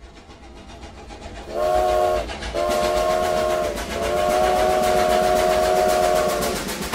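Steam locomotive sound effect: a steady chuffing rhythm that grows louder over the first second and a half, with the steam whistle blown three times, the last blast the longest.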